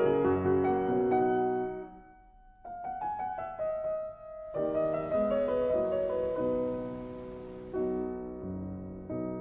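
Background piano music, slow held notes with a brief softer, sparser stretch about two seconds in.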